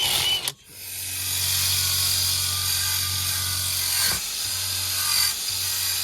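Power tool running steadily with a scraping sound, starting about half a second in, as rusted gas-furnace parts are wire-brushed clean.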